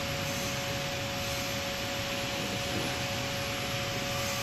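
Steady machine-shop hum and hiss, with two constant whining tones held throughout, from running machinery and fans.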